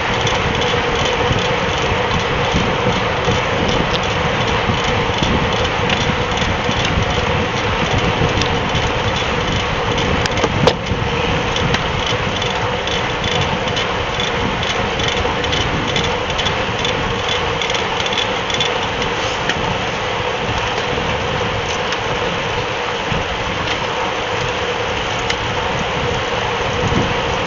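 Steady wind and road noise on a bike-mounted camera's microphone while riding in a pack of road racing bicycles, with one sharp knock about eleven seconds in.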